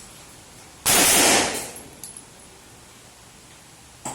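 A single pistol shot from a Glock fitted with a Recover stabilizer brace, about a second in. It is sudden and very loud and fades out over about a second. A small sharp click comes near the end.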